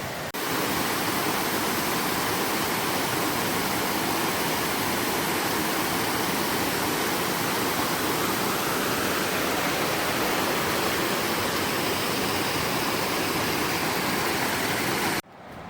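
Steady rush of fast-flowing river water, starting suddenly just after the beginning and cutting off suddenly near the end.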